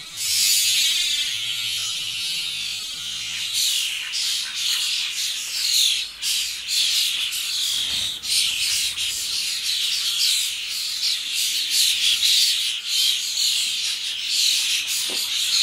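A group of juvenile common starlings calling over one another: a dense, chaotic run of harsh, falling screeches that gets busier and louder after the first few seconds.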